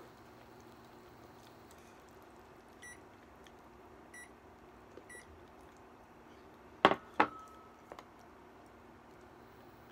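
Three short electronic beeps about a second apart, then two sharp clinks close together with a brief ring as a ceramic bowl is set down on the table.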